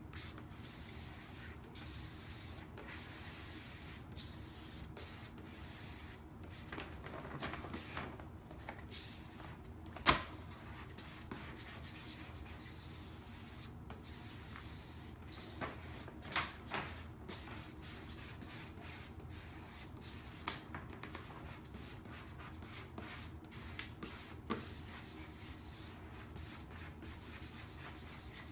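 Vinyl wrap being handled and smoothed onto a mini fridge: scattered rubbing and rustling with a sharp knock about ten seconds in, over a steady low hum.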